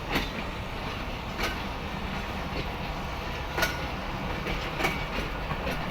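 Passenger coaches of a departing express train rolling past at low speed: a steady rumble from the wheels and running gear, with occasional sharp clicks as the wheels pass over rail joints.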